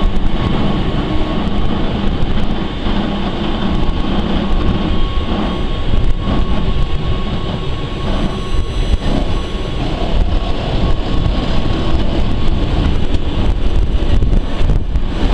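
Wengernalpbahn BDhe 4/8 electric rack railcar running, heard from inside the car: a continuous rumble of wheels and running gear with a steady whine over it.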